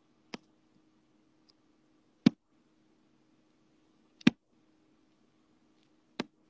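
Four sharp clicks about two seconds apart, the middle two loudest, over a faint steady hum: handling noise from a wired earphone microphone held against the lips.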